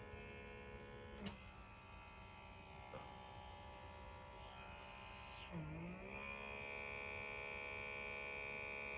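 Small electric motor of a handheld blackhead pore vacuum running with a steady, faint hum. Its pitch dips briefly and recovers about five and a half seconds in, as the suction tip is put back against the nose, and a small click comes about a second in.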